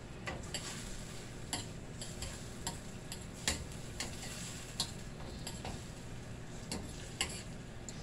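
A metal spoon clinking and scraping against a stainless steel pan as vegetables in vinegar are stirred, about a dozen irregular clicks over a faint steady hiss.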